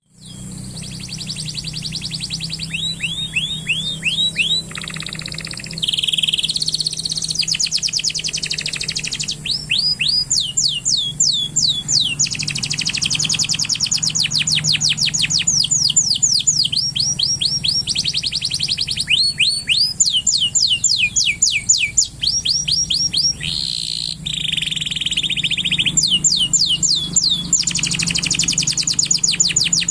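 Male canary singing continuously: long song of rapid trills, runs of fast repeated notes and quick downward-sweeping whistles, one phrase after another, with a faint steady low hum underneath.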